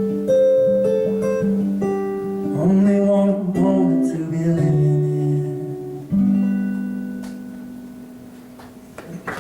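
Live band closing out a song with guitar chords; a final chord struck about six seconds in rings out and fades away. Applause breaks in right at the very end.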